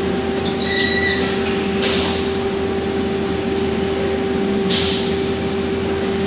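Factory noise from a robotic press brake cell at work: a steady mechanical whine sets in at the start and holds over a constant industrial hum. There are brief high squeaks about a second in and two short hisses, near 2 s and 5 s.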